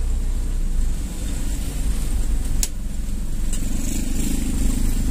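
Steady low engine and road rumble inside a moving car's cabin, with a single sharp click about two and a half seconds in.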